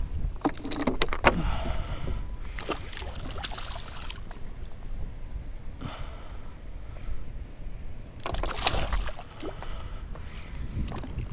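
A hooked redfish thrashing and splashing at the surface right beside a kayak: sharp splashes about a second in, a few more near four seconds, and a loud burst of splashing near nine seconds, over wind rumble on the microphone.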